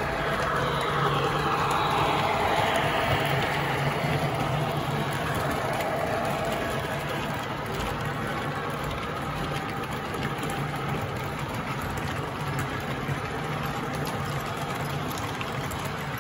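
American Flyer S gauge model freight train running past on the track: a steady motor hum with the rolling and clatter of wheels on rail, loudest in the first few seconds.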